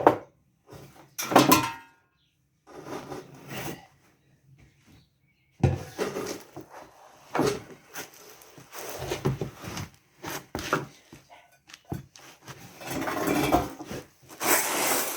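Engine parts being picked up, moved and set down on a hard surface: irregular clatters and knocks with short pauses, the loudest stretch near the end.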